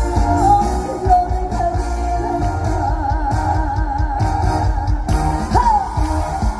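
Live concert music through a PA: a female singer holding sung notes with a wavering vibrato over an amplified band backing with heavy bass.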